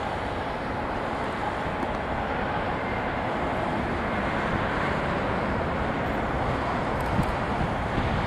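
Steady rushing noise of a distant Airbus A321's jet engines on the runway, growing slightly louder, with wind buffeting the microphone.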